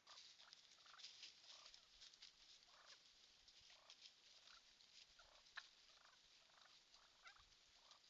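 A flock of wild turkeys calling faintly while feeding: short, soft calls, a couple a second, with one sharper, louder note a little past halfway.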